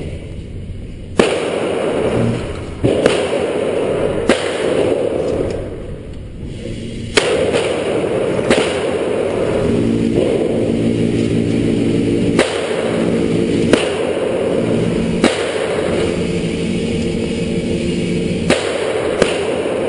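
Single rifle shots at an indoor range, about ten spaced a second or two apart, over a steady background hum.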